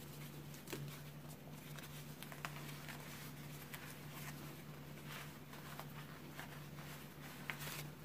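Faint rustling and soft ticks of satin neckties being handled and pulled through a knot at a shirt collar, over a low steady hum.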